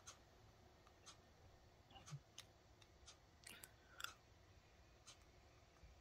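Near silence, with faint, scattered clicks and taps of two plastic NVLink bridges being handled and held against each other.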